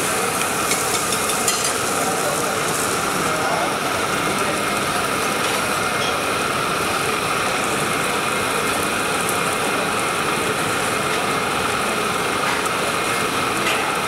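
Steady crackling sizzle of gram-flour batter cooking on a hot flat iron griddle, with a few faint clicks of a metal spatula.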